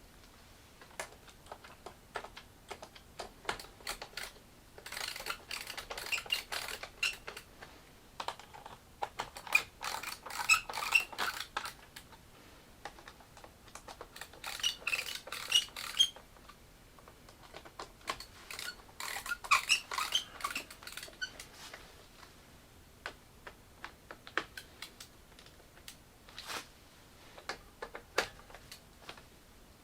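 Plastic parts of a Roomba clicking and squeaking as they are handled by hand, in four bursts of a couple of seconds each with scattered single clicks between.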